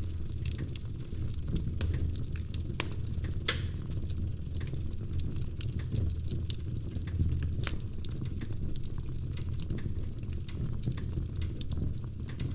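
Log fire crackling: frequent, irregular sharp pops and snaps over a steady low rumble of the flames, with one louder pop about three and a half seconds in.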